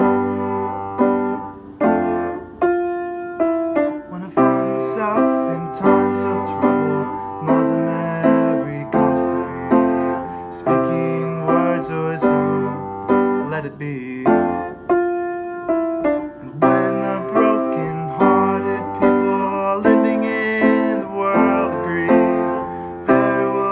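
Piano played by hand: a simple version of a song in chords and single notes, each struck and left to ring, about one a second.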